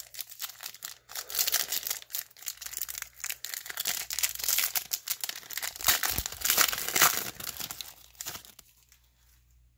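Foil wrapper of a baseball-card pack crinkling and tearing as it is pulled open by hand, a dense crackle that dies down near the end.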